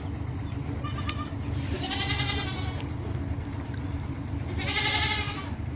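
Goats bleating: two long, wavering bleats about three seconds apart, with a shorter faint call and a click about a second in, over a steady low hum.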